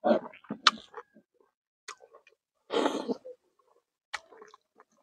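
Close-up wet chewing and lip-smacking of a mouthful of rice and frog curry eaten by hand, in a few separate bursts with quiet gaps between.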